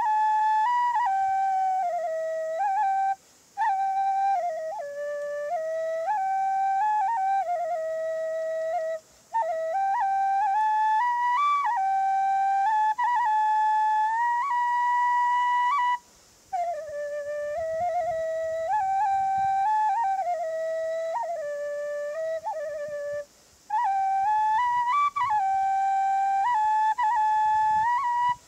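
Solo khlui (Thai bamboo flute) playing a slow, stepwise melody in long phrases, broken by four short breath pauses.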